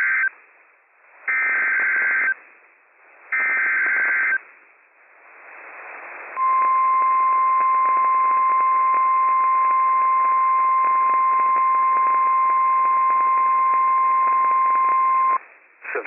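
NOAA Weather Radio Emergency Alert System tones over radio hiss: the end of one SAME header data burst and two more, each a buzzy digital screech about a second long, then after a short pause the steady 1050 Hz warning alarm tone held for about nine seconds, announcing a severe thunderstorm warning.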